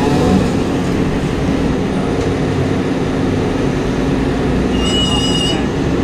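Heavy recovery equipment running steadily with a low, even drone, and a brief high-pitched squeal about five seconds in.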